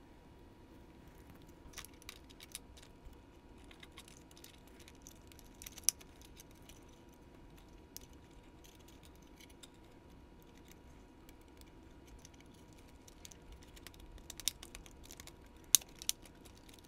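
Scattered small clicks and taps of plastic and metal parts of a TYCO model locomotive's power truck being handled and fitted together, the sharpest about six seconds in and a cluster near the end, over a faint steady hum.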